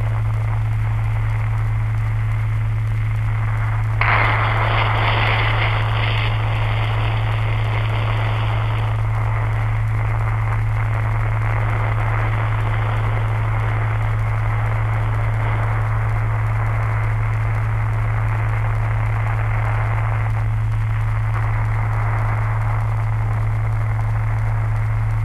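A steady, loud low hum under a hiss of static-like noise. A louder rush of noise starts suddenly about four seconds in and eases off over several seconds.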